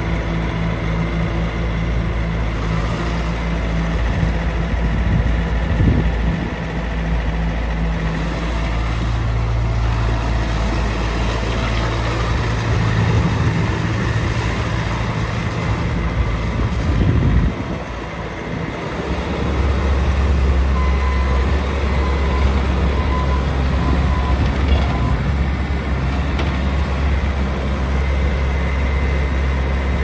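Bobcat T590 compact track loader's diesel engine running, its note shifting a few times, dipping briefly about eighteen seconds in, then holding steady and low.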